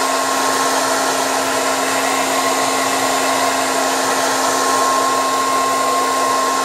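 Handheld hair dryer running steadily on hot air, a constant hum and a higher whine over the rush of air, blowing onto a sticker to soften its adhesive.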